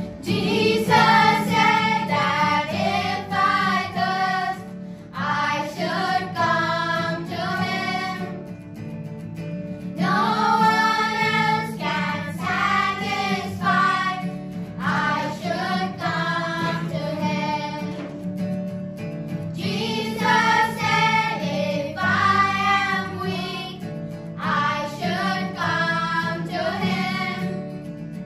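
A group of children singing a song together, in sung phrases with short breaks between them.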